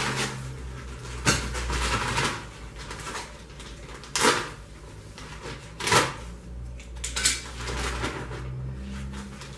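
A bag of cement-based tile adhesive being torn open by hand: crinkling rustle of the bag with several sharp rips.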